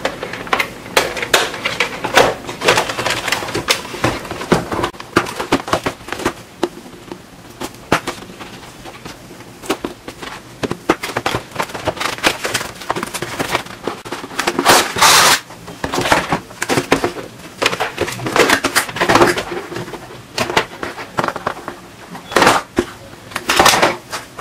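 Cardboard toy box and its plastic packaging being handled and opened by hand: irregular clicks, scrapes and crackling, with longer rustling stretches in the middle and near the end.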